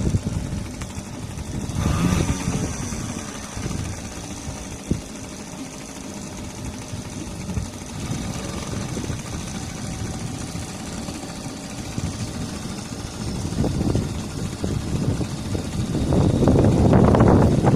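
Small two-stroke outboard motor, an HDX T2.5 running on a moped carburettor. It runs at a lower, quieter speed through the middle and is revved up louder near the end.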